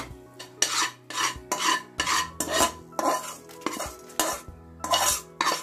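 Steel slotted spoon scraping dry-roasted seeds and dried red chillies around a nonstick kadai in quick repeated strokes, about two to three a second, as the roasted spices are scraped out of the pan.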